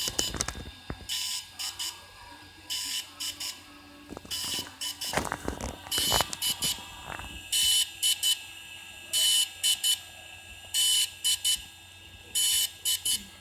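DJI Phantom 3 drone beeping loudly and repeatedly, one longer beep followed by two short ones about every one and a half seconds: the beeping the drone makes after a firmware update goes wrong. A few knocks sound between the beeps, the main cluster about five to six seconds in.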